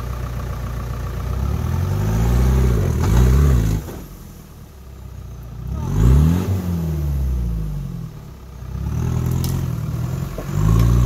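Off-road buggy's engine revving up and down repeatedly as it is driven between trees. The revs fall off twice, about four and eight seconds in, then climb again.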